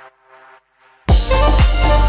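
Background electronic music: a faint, fading passage, then about a second in the full track comes in loudly with a heavy, regular bass beat.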